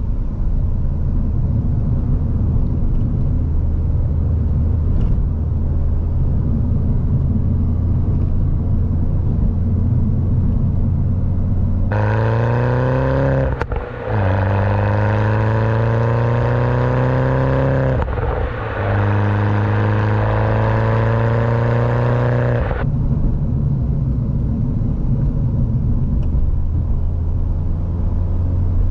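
Turbocharged 1.6-litre four-cylinder of a stage 2-tuned 2007 Mini Cooper S (R56) with a Remus exhaust, driving. It drones steadily heard from inside the cabin, then for about ten seconds is heard at the Remus tailpipes accelerating hard with rising pitch, broken twice by brief dips at gear changes. Near the end it drops back to the steady drone.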